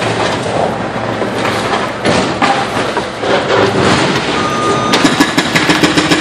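Concrete mixer truck's diesel engine running as wet concrete comes down its chute into wheelbarrows, mixed with scraping and clatter of concrete being worked. From about five seconds in the engine takes on a quick, even pulsing, about four to five beats a second.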